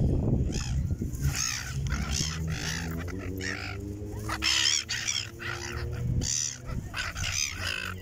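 Flock of small red-billed gulls calling over and over, harsh squawks from several birds overlapping, about one or two a second.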